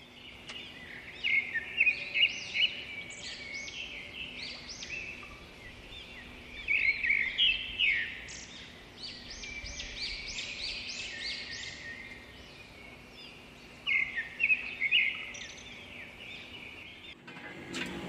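Birds chirping: many short, quick calls, bunched in three louder spells with sparser chirps between, fading in at the start and stopping shortly before the end.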